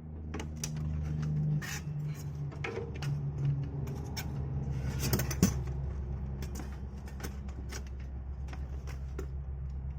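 A low, steady machine hum with a fast flutter, overlaid by scattered clicks and knocks from handling, with one sharper knock about five seconds in.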